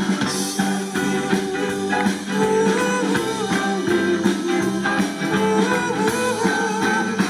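Live band playing an instrumental break in a doo-wop song: a guitar plays a melodic lead line over a steady drum and bass beat, with no singing.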